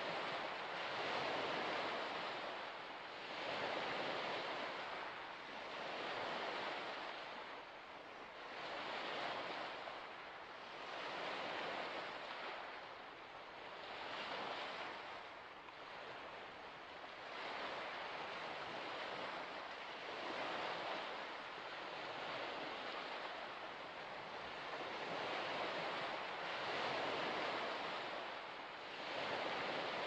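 Small waves washing onto a shore, the surf swelling and fading every two to three seconds.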